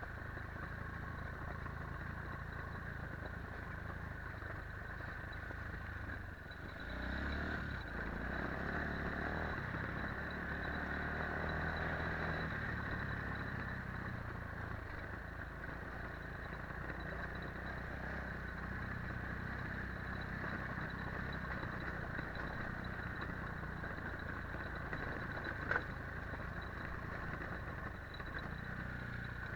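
Quad ATV engine running steadily under way, rising in level about seven seconds in, with a single sharp click late on.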